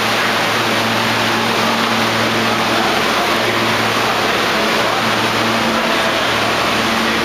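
New York City subway train rolling slowly into an underground station. It makes a loud, steady rush of noise over a low, steady hum.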